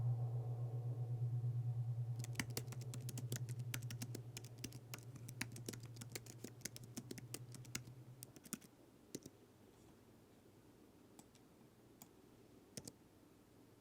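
Typewriter keys clacking in a fast, uneven run of keystrokes for about seven seconds, then a few single strokes near the end. Under the start, a low hum from a gong-like tone fades away and stops about eight seconds in.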